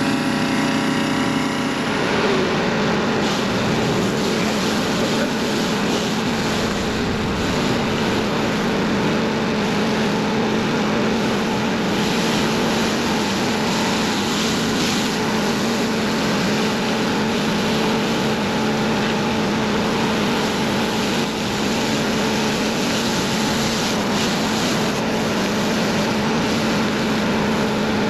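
Small gas engines running steadily, a pressure washer and a blower, making a constant drone with a broad rushing hiss of spray and air.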